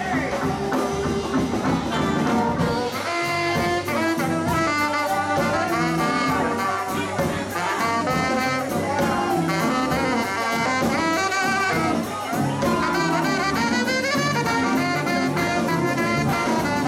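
Live band playing, with a saxophone taking a solo of quick running lines over the guitar, keyboard and drums.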